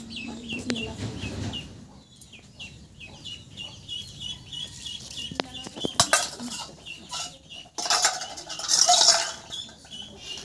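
Birds chirping over and over in short high notes, with steel utensils and bowls clinking about six seconds in and a louder metallic clatter near the end.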